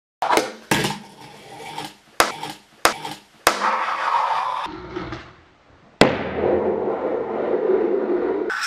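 Fingerboard tricks on a tabletop: several sharp clacks as the small board is popped and lands, each followed by the rolling of its little wheels. A longer roll follows the last clack, about six seconds in.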